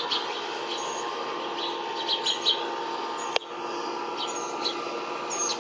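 Small birds giving short, scattered chirps over a steady background hum, with one sharp click a little past the middle.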